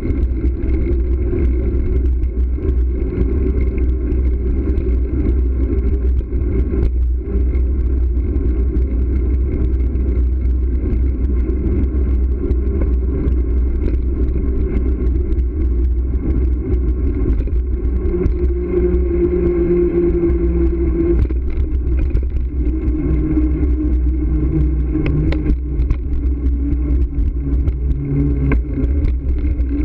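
Steady low wind rumble on the microphone of a camera riding on a moving bicycle, mixed with road and tyre noise. Faint hums come and go and shift in pitch during the second half.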